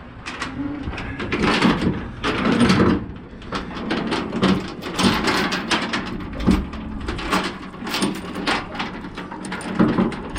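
Steel tie-down chain clanking and scraping against the load and trailer as it is pulled tight for load securement, with irregular metallic knocks and rattles.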